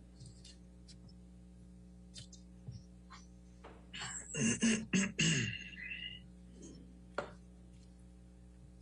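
Low steady electrical hum, with a brief indistinct burst of sound about four seconds in and a single click about seven seconds in.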